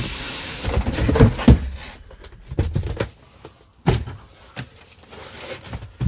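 Cardboard boxes being handled: a scraping hiss of cardboard sliding, then heavy thumps about a second in and a few scattered knocks as the outer shipping carton is pulled off the boxed Max Pro.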